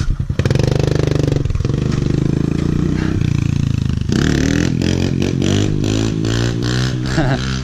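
Small pit-bike engine revving and pulling away, climbing in pitch as it accelerates from about four seconds in, with a rush of wind and rattling over it.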